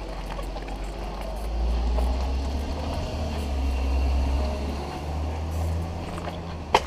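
Low rumble of wind and road noise on a moving action camera during a street ride. A sharp click or knock comes near the end.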